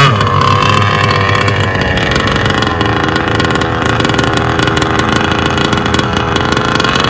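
Enforcer Stingray RC hydroplane's engine dropping in pitch as it comes off the throttle, then running steadily at low speed.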